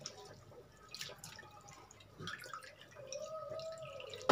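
A hand scooping soaked basmati rice out of a bowl of water, with small splashes and water dripping off the lifted rice.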